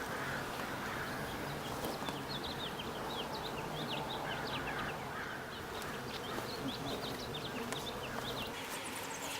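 Honeybees buzzing around an open hive and a brood frame covered with bees: a steady low hum. Over it, from about two seconds in until near the end, come many short, quick, high chirps.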